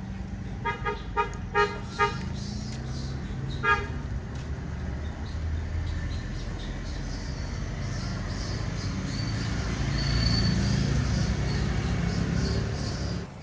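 Vehicle horn tooting in short beeps, four quick ones in the first two seconds and a fifth a couple of seconds later, over steady road traffic noise.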